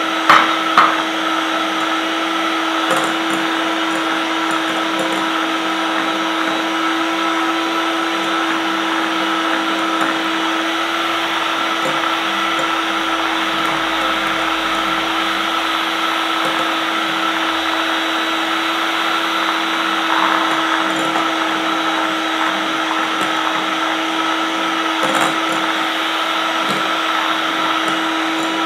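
Electric hand mixer running steadily at one speed, its twin wire beaters whisking a runny egg mixture in a glass bowl, with a constant motor whine. Two sharp knocks about half a second apart come just after the start.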